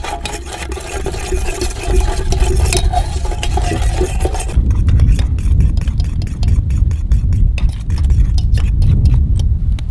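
A metal fork stirring maple sugar into water in a small metal camp pot, scraping and clinking against the pot's sides. The sugar is being dissolved and heated back into syrup. About halfway through, a loud low rumble takes over, with the clinks continuing over it.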